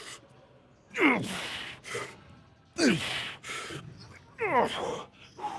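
A man groaning with effort through repeated reps of a tricep extension set: three falling-pitch groans, each followed by a hard, breathy exhale, coming roughly every second and a half to two seconds.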